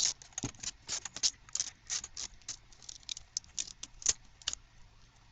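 Tape being peeled and unwound from the windings of an electromagnet coil, an irregular run of short crackles and rips that stops about four and a half seconds in.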